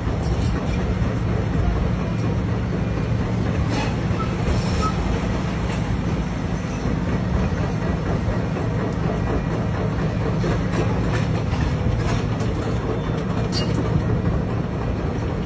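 Heavy earthmoving machine engine running steadily with a constant low hum, a few light clicks over it.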